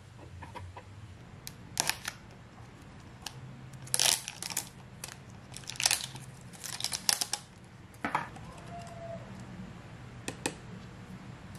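Short sharp crackles and tearing of plastic as a knife slits the plastic seal around the lid of a plastic yogurt tub and the lid is pulled off, repeated several times, over a faint low steady hum.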